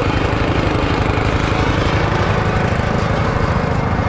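Small petrol engines running steadily at an even speed: a quad bike bogged in a wet spot, together with the small engine on the fertiliser sower it pulls.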